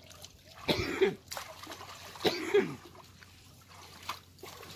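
A man's voice: two short, loud vocal outbursts, about a second in and again about two and a half seconds in, with faint trickling water in the background.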